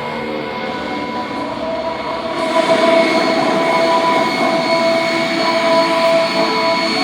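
MiG-17's Klimov VK-1 turbojet running at taxi power: a rushing jet noise with several steady whining tones, getting louder about two and a half seconds in.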